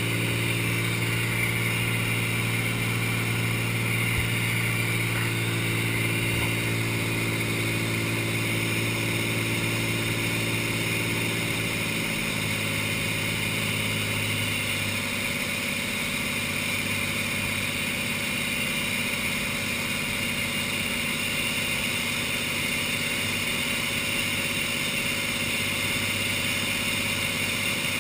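Cessna light aircraft's piston engine and propeller droning steadily in flight, heard over a steady rush of airflow; the engine tone shifts slightly about twelve seconds in.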